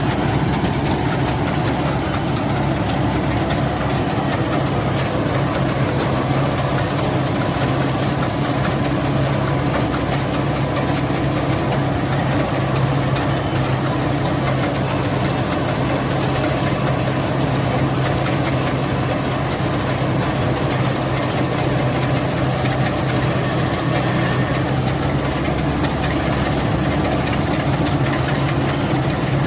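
Rice combine harvester running steadily, its engine and machinery holding an even low drone with no change in speed.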